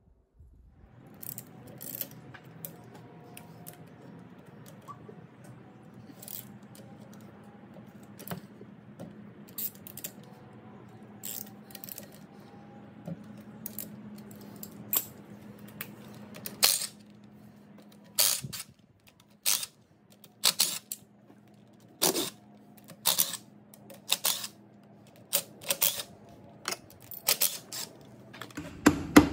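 Hand tools and bolts clinking sharply against the steel differential cover and housing of a Ford 8.8 rear axle as the cover bolts are taken out. The clinks are irregular and come more often and louder in the second half, over a steady low hum.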